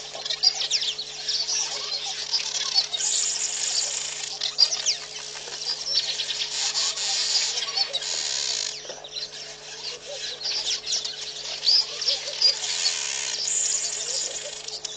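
Wild birds calling and chirping, with many short whistles and chirps, broken by several bursts of high, buzzing hiss lasting about a second each. A steady low hum runs underneath.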